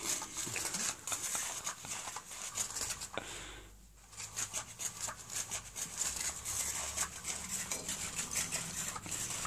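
Rustling and quick scratchy clicks of a cat's paws and claws pawing at a nylon toy cover and carpet, with a brief lull about four seconds in.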